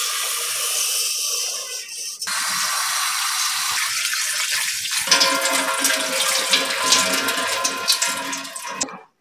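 Kitchen tap running into a bowl of split urad dal (dal maash) in a steel sink while a hand swishes the lentils around to wash them; near the end the rinse water is tipped out. The water stops abruptly just before the end.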